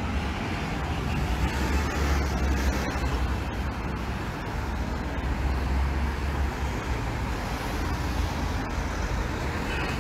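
Road traffic at a junction: cars and lorries passing in a steady low rumble.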